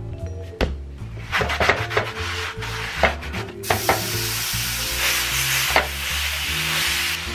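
Raw ground beef sizzling in a hot cast-iron skillet, with a loud frying hiss that starts suddenly about halfway through as the meat hits the pan, while a wooden spoon scrapes and breaks it up. A few knocks and clatters of handling come before it, over steady background music.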